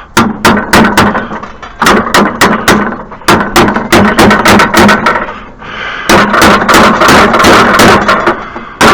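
Repeated sharp hammer strikes on metal, two or three a second with a short lull about five seconds in, knocking a part of a snow thrower loose instead of unbolting it.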